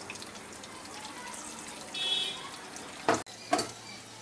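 Pieces of steamed egg sizzling steadily in hot oil in a nonstick kadai as they brown. About three seconds in come two sharp knocks, the loudest sounds, as a spatula goes into the pan, and shortly before them a brief high-pitched tone.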